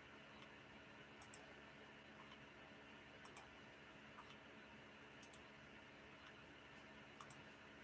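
Faint computer mouse clicks, each a quick press-and-release pair, four of them about two seconds apart, over quiet room hum.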